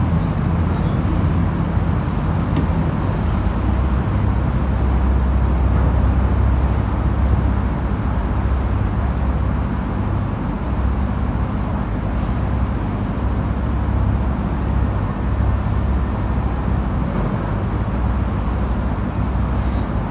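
Fire boat's engines running under power with a steady low hum that swells and eases slightly, over a steady rush of noise.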